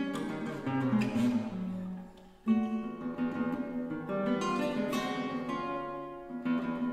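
Solo nylon-string classical guitar playing plucked notes and chords; the sound dies away briefly about two seconds in, then a loud chord strikes in sharply and the playing carries on.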